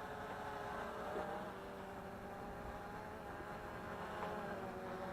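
MJX Bugs 3 quadcopter's brushless motors and propellers running steadily, a whir made of several held pitches.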